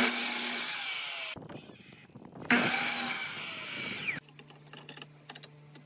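Power tool working pallet wood in two short bursts of about a second and a half each, its pitch dropping as it runs. Faint clicks follow.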